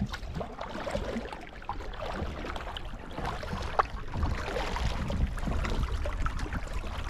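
Double-bladed kayak paddle strokes in lake water: the blade dipping and pulling, with small splashes and drips, over a low steady rumble.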